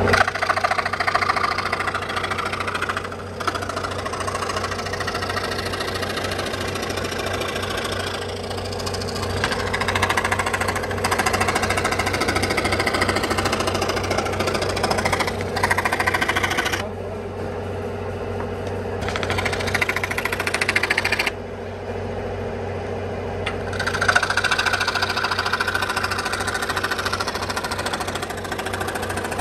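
Power woodworking tool running with a fast, even rattle as it cuts wood for a wooden basket; the higher part of the sound drops away briefly twice in the second half, then picks up again.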